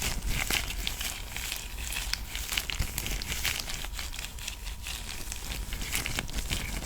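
Rubbing and squeezing close against the microphone, a dense run of irregular crinkly crackles and scratches with a low handling rumble beneath: ASMR sounds standing in for kneading the shoulders.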